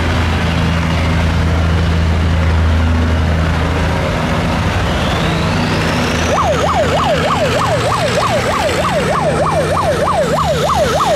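Boat engines running steadily under load. About six seconds in, an electronic siren starts a fast up-and-down yelp, about three or four sweeps a second, and cuts off near the end.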